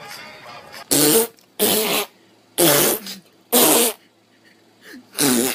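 Fart-like sputtering noises: four short loud bursts about a second apart, then a fifth near the end.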